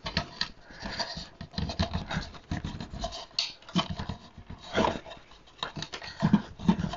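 Scattered clicks, scrapes and rustles of hands working wires and small parts on a wooden scale frame, in an uneven run of short knocks.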